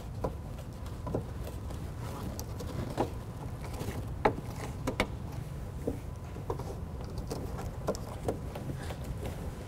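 Rubber trunk weatherstrip being pressed by hand onto the pinch weld of a 1979–1993 Mustang's trunk opening: scattered soft clicks and taps, about one every second, over a steady low hum.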